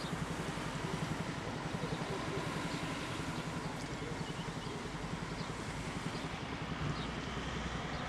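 An engine running steadily, with a fast, even low throb.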